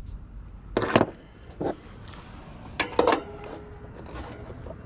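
A few short metal clinks and knocks from hand tools being handled and set down, about a second, a second and a half, and three seconds in.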